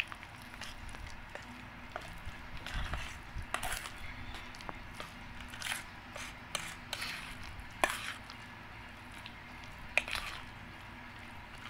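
A utensil stirring thick mashed banana and coconut milk powder in a metal bowl: soft wet squishing with irregular sharp clinks and scrapes against the bowl's side, the loudest clinks near the end.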